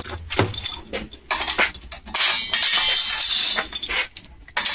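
Steel bolts and washers clinking and rattling as they are handled and fitted to a differential stand, with a longer stretch of rattling about two seconds in.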